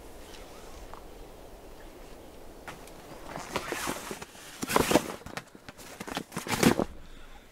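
Nylon rustling and scraping in irregular bursts as a stuffed sleeping bag is pushed down into a blue pack, after a few seconds of faint ambience.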